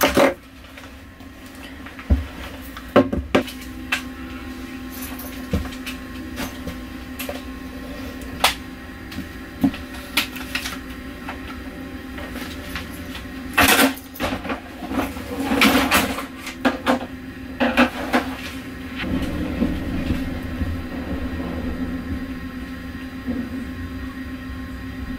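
Steady hum inside a parked, empty airliner cabin, with scattered knocks and clatters of things being handled in the galley and aisle. The clatters come thickest about halfway through.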